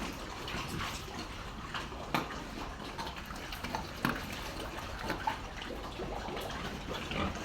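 Pig pen background noise: a steady, watery-sounding hiss with scattered clicks and knocks.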